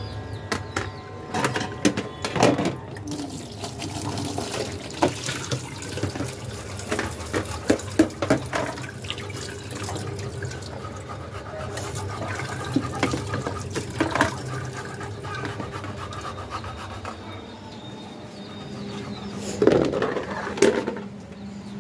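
Water running from a kitchen tap, with dishes and utensils knocking and clattering in the sink now and then.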